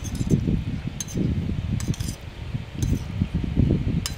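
Close-miked chewing and mouth noises of a mouthful of rice, pasta and beans, with a metal utensil clinking against a glass plate about five times, roughly once a second.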